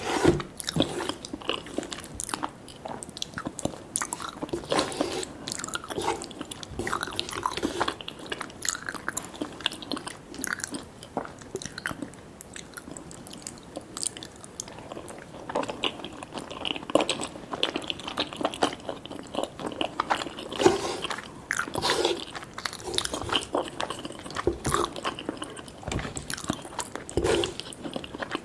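Close-miked eating sounds: steady, irregular chewing with crunchy bites, a meal of cheese lasagna and butter garlic toast.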